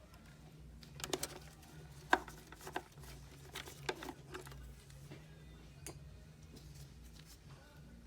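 Scattered small metallic clicks and taps of a screwdriver working screws out of a car infotainment head unit's metal housing, over a steady low hum.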